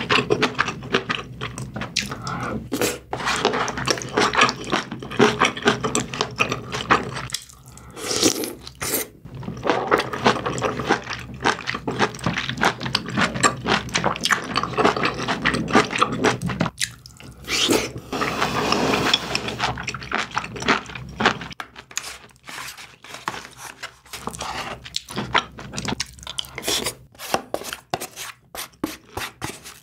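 Close-miked wet chewing and mouth smacking of braised kimchi, pork and rice, with a wooden spoon scraping food from a dish and a paper container.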